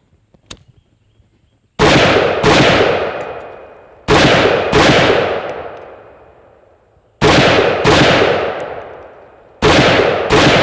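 Rifle fired in four quick pairs of shots, the two shots in each pair well under a second apart and the pairs a couple of seconds apart. Each shot is loud and sharp and trails off over about two seconds.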